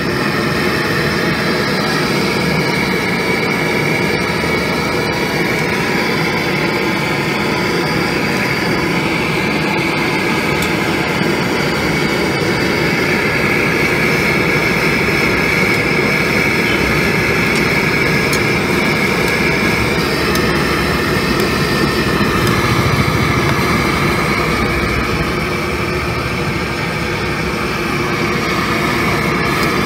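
Steady roar of a street-stall gas burner at full flame under a large aluminium kadai of simmering Maggi broth.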